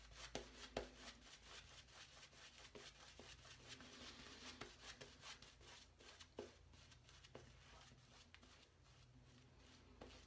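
Black badger shaving brush working thick shaving-soap lather over the face: faint wet swishing, dotted with many small crackles.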